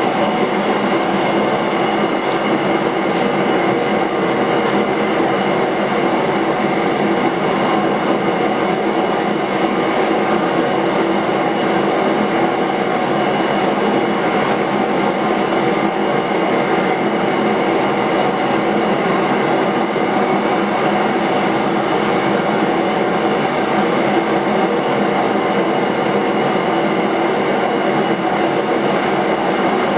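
A steady, unbroken mechanical noise that holds one level throughout, with no breaks, strikes or speech.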